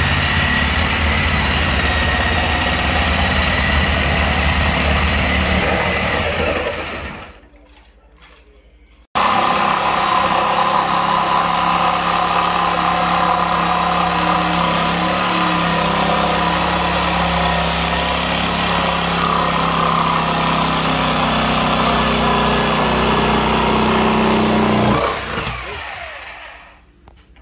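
Handheld power saw cutting through old barn-board wall boards. It runs steadily, winds down about seven seconds in, starts again after a short pause, and runs until it winds down near the end.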